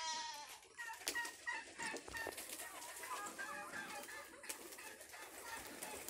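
Chickens clucking faintly, with scattered short calls from other farm birds.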